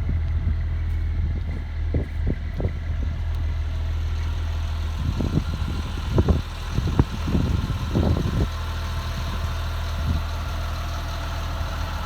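Caterpillar C7 inline-six diesel engine of a school bus idling steadily, with a few dull bumps partway through.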